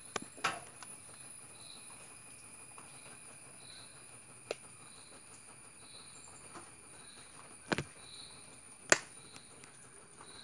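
Faint insect chirping with a soft regular pulse about once a second, broken by several sharp clicks or taps. The loudest click comes about nine seconds in.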